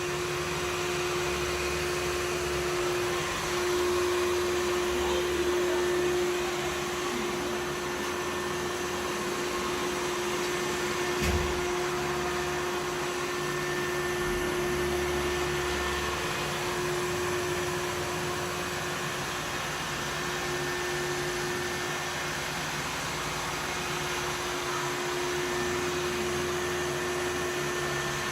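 Samsung VR20M7070WD robot vacuum running with a steady whirring hum and hiss, with a single brief knock about eleven seconds in.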